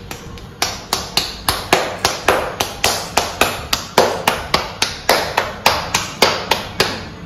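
Hand-patting of a wet pearl-millet (bajra) and spinach dough ball between bare palms, flattening it into a thepla: a steady run of sharp slaps, about four a second, starting about half a second in and stopping just before the end.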